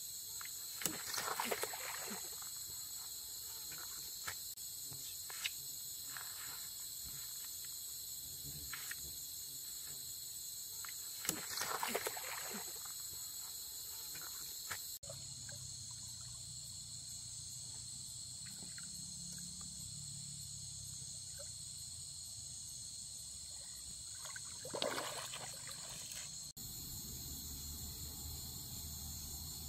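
Night-time chorus of crickets and other insects, a steady high-pitched trilling, with a few short rustles and knocks, the loudest about a second in and again about twelve seconds in.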